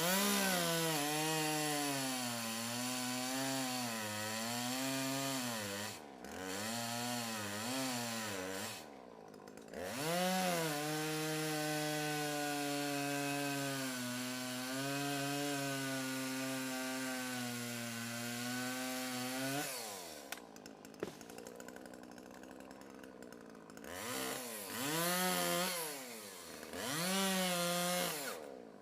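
Petrol chainsaw cutting logs. The engine revs up and holds high with a wavering pitch, falls back to a low idle a few times, and comes back up for the next cut.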